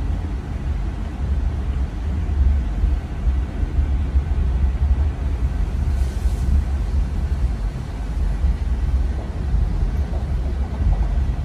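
Steady low rumble of an RER A commuter train running at speed, heard from inside the carriage.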